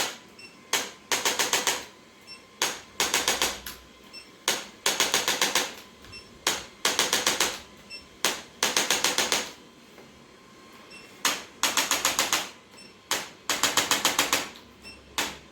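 Rapid mechanical clicking in repeated bursts, about ten sharp clicks a second, each burst lasting up to about a second with short pauses between.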